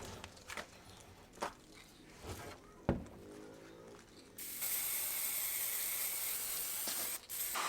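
A few clicks and a sharp knock, then about halfway through an aerosol can of clear lacquer starts spraying in a steady hiss, with a brief break near the end.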